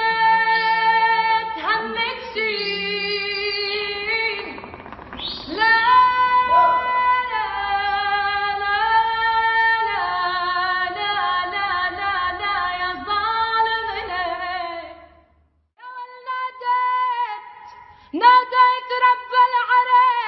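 A solo female voice singing an Arabic melody with long held, ornamented notes and no clear accompaniment, pausing for about a second near the three-quarter mark before going on.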